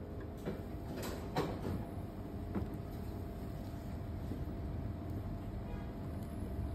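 A few short clicks and knocks in the first three seconds as the stand mixer's tilt head is unlocked and raised off the steel bowl, followed by quiet handling of the bowl and a spatula, over a low steady hum.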